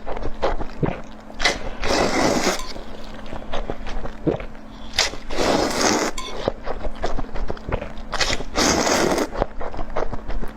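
Crunchy chewing of food close to the microphone. Three loud crunching bursts come about three seconds apart, with small clicks and smacks between them.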